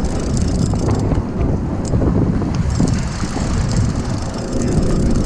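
Wind buffeting the microphone on a boat at sea: a steady, uneven low rumble.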